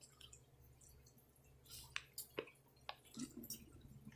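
Near silence: room tone with a few faint, scattered clicks and small taps.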